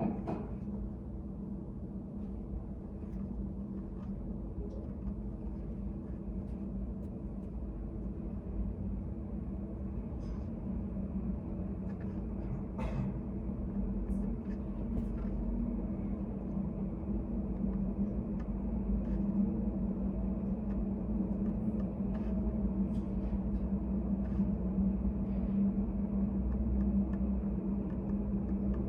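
Study café room ambience: a steady low hum with faint, scattered clicks and taps, growing slightly louder in the second half.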